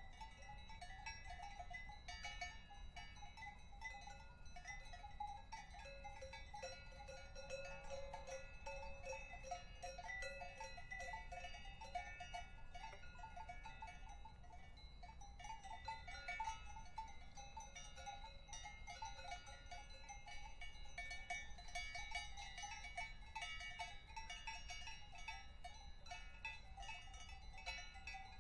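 Several cowbells clanking irregularly at different pitches, their strokes overlapping and ringing on without a break.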